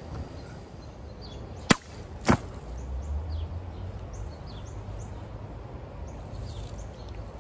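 Longsword blade cutting through plastic soda bottles: two sharp chops about half a second apart, the first louder.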